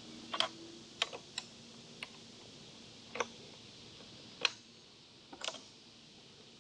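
Scattered sharp clicks and light metal taps, about eight at uneven spacing, from hand tools being handled while working on the motorcycle's rear chain adjustment.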